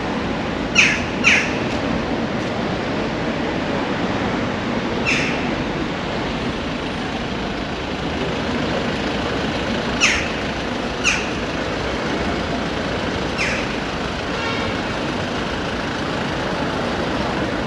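Steady rumble of street traffic, with six short, sharp, high chirps scattered through it standing out as the loudest sounds.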